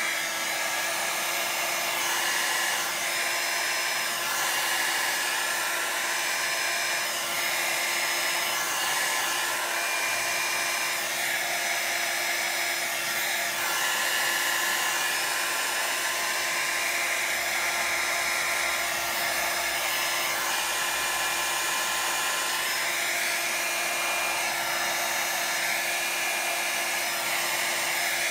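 Handheld heat gun running steadily, blowing hot air across wet alcohol ink to push and spread it. A constant hum under a rushing hiss of air that wavers as the tool is moved over the paper.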